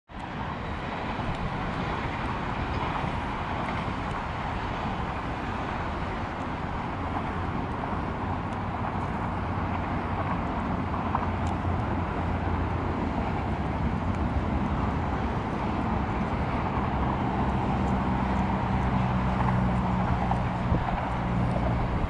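Steady rumble of distant motor traffic, with a low engine drone that grows louder in the second half.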